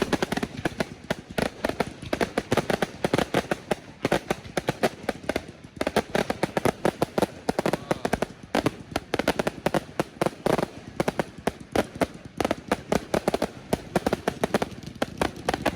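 Fireworks going off in rapid, continuous succession: many sharp reports every second, packed close together with no break.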